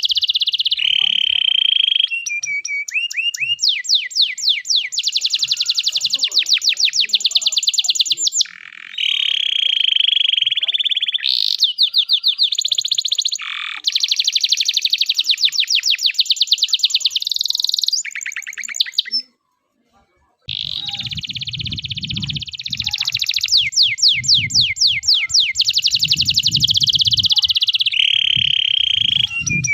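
Domestic canary singing a long, unbroken song of rapid trills and rolls. About two-thirds of the way through it drops out for about a second, and when it resumes a low rumble sits beneath it.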